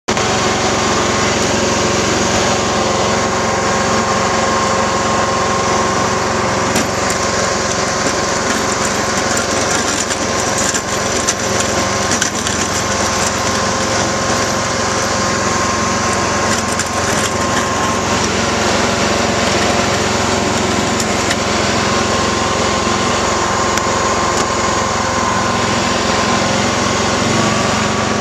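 John Deere GT 262 garden tractor's engine running steadily as the tractor pushes snow with its front blade, a constant engine hum with a rough rattling noise over it and a few short knocks around the middle.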